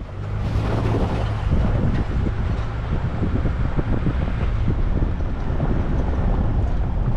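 Wind buffeting the microphone: a loud, irregular rumbling rush with crackles, starting abruptly.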